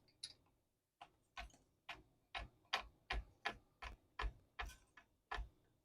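Guitar tuning machine being wound with a string winder to bring a new string up to tension, giving a faint, regular click about two and a half times a second.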